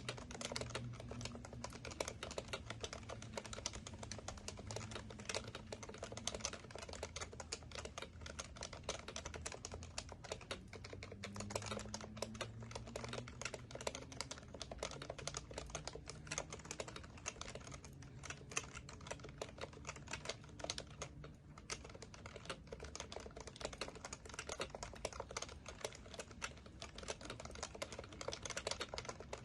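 Continuous fast typing on an HHKB Professional Classic keyboard, its Topre tactile switches clacking in a steady, dense stream of keystrokes.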